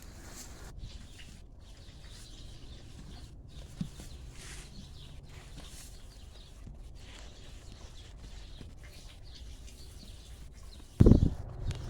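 Outdoor ambience: a steady low rumble with faint high chirping. Near the end comes a sudden loud, low-pitched call.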